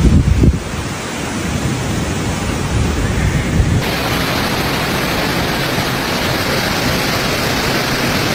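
Storm noise of strong wind and heavy rain, a steady rushing sound, with wind buffeting the phone's microphone in the first half second. About four seconds in it turns abruptly hissier.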